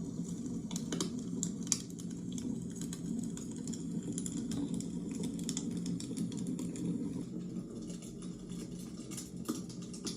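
Wood fire crackling in a fireplace: irregular pops and snaps, with a steady low hum underneath.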